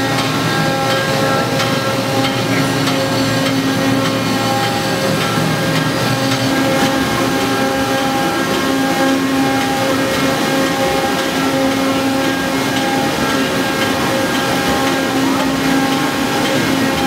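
Loud, steady din of sugar cane mill machinery: a continuous machine hum with several held tones over a constant rushing noise.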